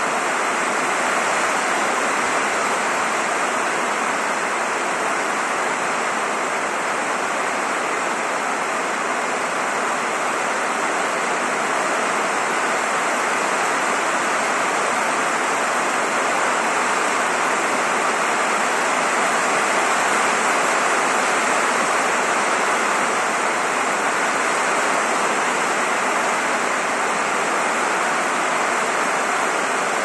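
Heavy rain falling steadily and drumming on a roof, an even hiss of water with no let-up.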